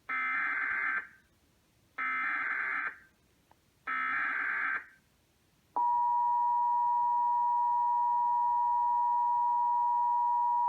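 Emergency Alert System broadcast header: three one-second bursts of buzzy SAME digital data tones, then about six seconds in the steady two-tone EAS attention signal comes on abruptly and holds.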